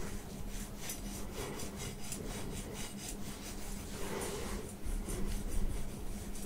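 Thin metal prongs of a wire scalp massager scratching over short-cropped hair and scalp close to the microphone, in quick rhythmic strokes of about four a second, easing off about two-thirds of the way through.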